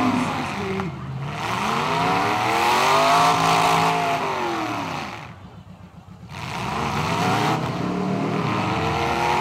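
Demolition derby truck engine revving in long swells, its pitch climbing and falling over a few seconds at a time. The sound drops away briefly a little past halfway, then comes back.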